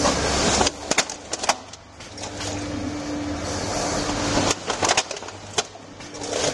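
Automatic cup filling and sealing machine running: a steady hum under clusters of sharp mechanical clacks and stretches of hiss as the chain conveyor indexes the plastic cups along.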